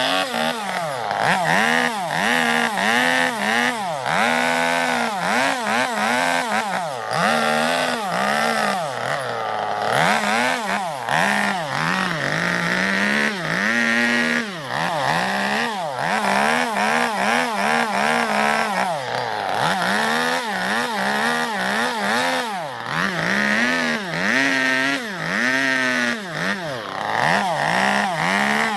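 Two-stroke chainsaw carving into zelkova wood to hollow out a bowl, its engine revving up and falling back over and over in quick repeated surges.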